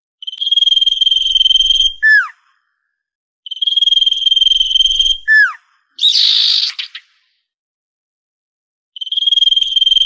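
Common iora song: a long, level whistle of about a second and a half ending in a short, sharply falling note, given three times, with one harsh rasping call about six seconds in.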